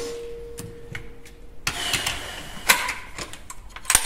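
Clicks and a scraping rattle as the action of an Armi Jager AP80 .22LR rifle is worked by hand while the shooter clears a feeding fault. A metallic ringing tone fades out over the first second and a half.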